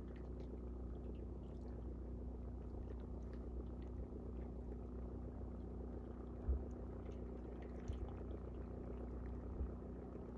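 Seaside ambience: a steady low rumble under a faint steady hum, with light scattered ticks and three brief low thumps in the second half.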